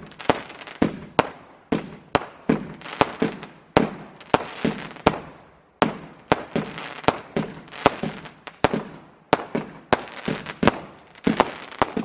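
Consumer fireworks firing a rapid barrage, like a multi-shot cake: sharp bangs about two or three a second, each dying away quickly, with no letup.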